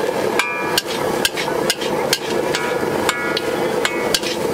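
Metal ladle striking and scraping a large iron wok while stir-frying fried rice: a quick, uneven run of clangs, several of them leaving the wok ringing, over a steady hiss.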